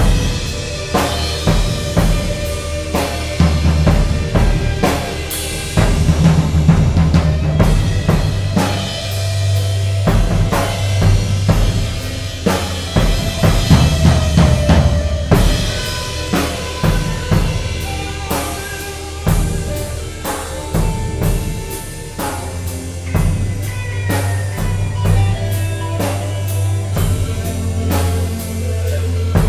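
Free improvised music: a drum kit playing dense, irregular hits over sustained low bass tones, with held and sliding pitched notes from another instrument above.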